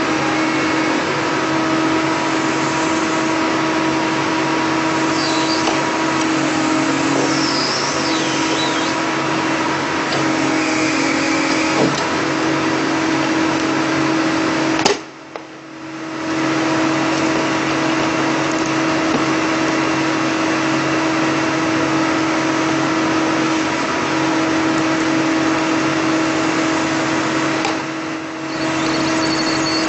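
Doosan DX225LC excavator's diesel engine and hydraulic system running steadily under load, powering an SW1100 Super Wedge hydraulic splitter as it drives its wedge into a drilled hole to split rock: a dense, even machine noise with a steady hum. The sound drops away sharply for about a second around halfway through and dips again briefly near the end.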